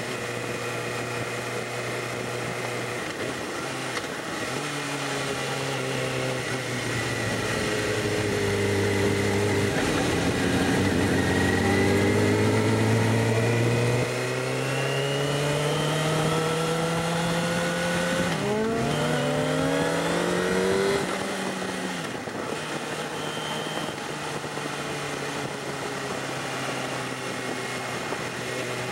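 Sport bike engine heard from the rider's seat, pulling hard through the gears: its pitch climbs, drops at a gear change about two-thirds of the way through, climbs again, then the throttle comes off and it settles to a steady cruise. Wind rush on the microphone throughout.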